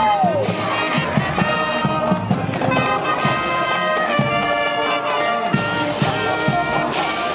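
Marching band playing: trumpets, trombones and sousaphones carry the tune over drums keeping a steady beat.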